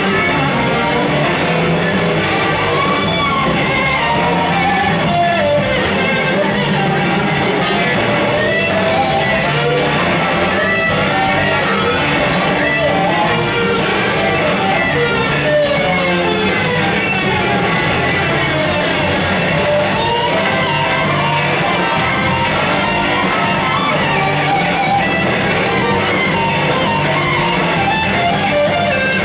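Live blues-rock band playing, electric guitars to the fore over drums and bass.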